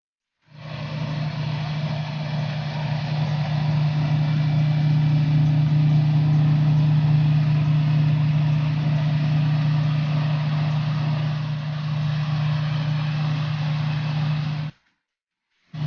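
Harvest machinery engine running steadily with a strong low hum. It begins about half a second in, drops out abruptly for about a second near the end, then resumes.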